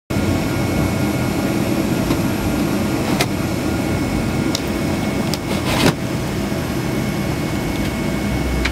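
Steady roar of an airliner cabin, heard from inside: jet engine and airflow noise with a few faint steady whines above it. A few sharp clicks break in, one about three seconds in and a short cluster near six seconds.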